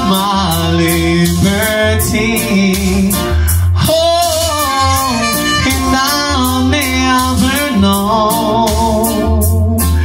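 A man singing live into a handheld microphone, his voice sliding between held notes, over backing music with a steady bass line.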